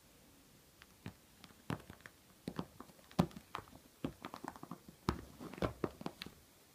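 Irregular soft clicks and rustles of a hand rubbing and scratching a cat through its fleece jumper, several a second, with a few louder thumps.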